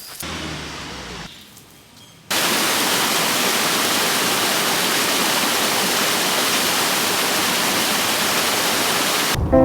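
Steady rush of water falling at a small waterfall, cutting in suddenly about two seconds in and cutting off just as music begins near the end.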